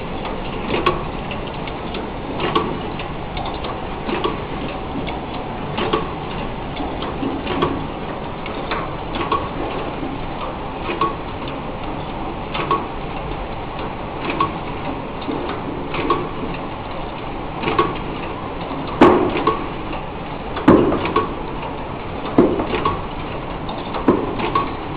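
Automatic cellophane wrapping machine for playing-card decks running: a steady mechanical noise with a regular clack a little less than every two seconds and lighter ticks between. The clacks turn into louder knocks about three quarters of the way through.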